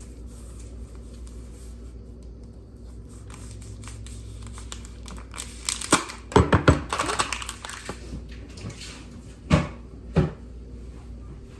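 Kitchen handling sounds: a cluster of knocks with crinkling, like packaging being handled, about six seconds in, then two single knocks near the end.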